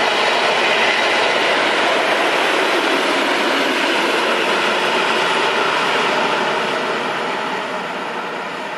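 Two diesel locomotives running light, an SM42 shunter coupled with an ST44 (M62-type) freight locomotive, passing close by with engine and wheel noise. The sound is loudest about a second in and fades from about six seconds on as they move away.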